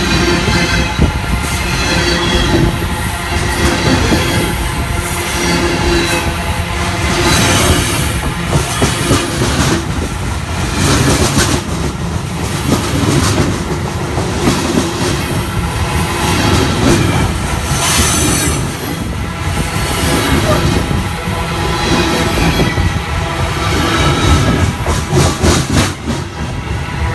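A train's wheels rolling over freshly ground rail: a steady loud rumble with a whine of several steady tones above it, the singing that rail grinding leaves on the running surface.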